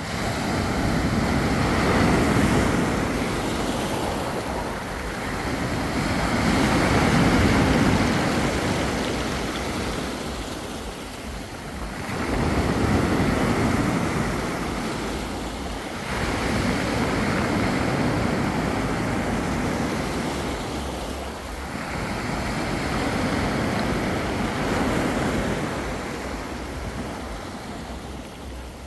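Black Sea waves breaking on the beach and washing back, a surge every five or six seconds.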